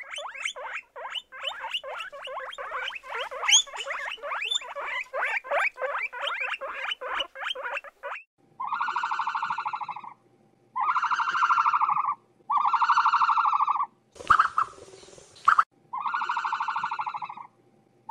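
Guinea pigs squeaking in rapid high chirps, many a second, for about eight seconds. Then an animal gives four long buzzing calls of about a second and a half each, with a short noisy scuffle between the third and fourth.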